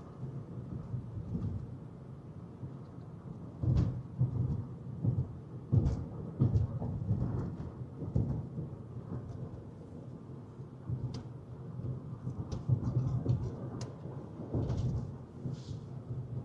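Low rumble inside a moving car's cabin, swelling and easing irregularly as road and wind noise buffet it, with scattered short knocks and clicks.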